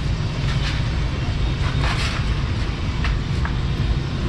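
Steady low rumble of road traffic, with a few short clicks and knocks about two, three and three and a half seconds in.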